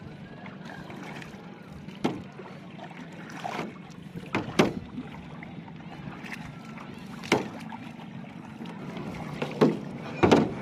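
Double-bladed paddle working a clear-hulled kayak: a series of sharp splashes and knocks, about six at irregular gaps of one to three seconds, over a steady background wash.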